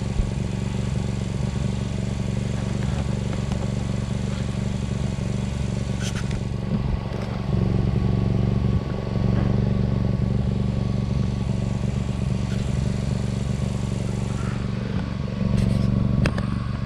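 WEN GN400i inverter generator running steadily in eco mode, with a few light knocks near the middle and end.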